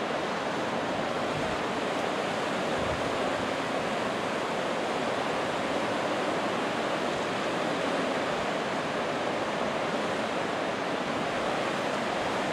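Steady rush of a fast, shallow mountain river running over rocks.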